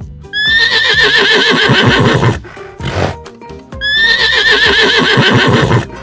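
A horse whinnying twice, each a long quavering whinny of about two seconds, over background music.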